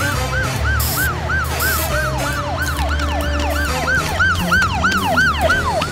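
Police sirens in fast yelp mode, rising and falling about three times a second, with a second siren sweeping over the first, over a steady low rumble.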